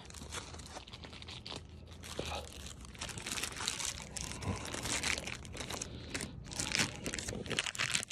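Irregular rustling and crinkling handling noise, with many light clicks and taps scattered through it.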